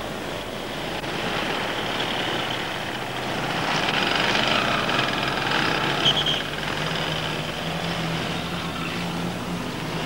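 Street traffic: motor vehicles running past, with a steady low engine hum that grows stronger in the second half.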